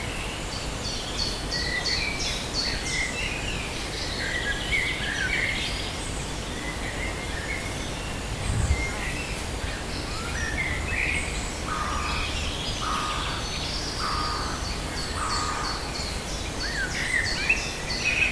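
Several forest birds singing and chirping together, with quick trills and scattered short calls over a steady low background rumble. Near the middle there is a brief low thump, and in the second half a lower call repeats four times, about once a second.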